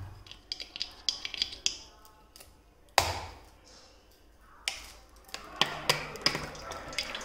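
Light taps and clicks with one sharper knock about three seconds in. From about two-thirds of the way through, mustard oil is poured from a bottle in a stream into an empty aluminium kadhai.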